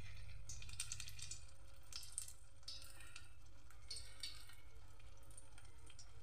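A battered paneer pakora deep-frying in hot oil in a steel kadhai: a faint sizzle with short bursts of crackle about once a second, over a steady low hum.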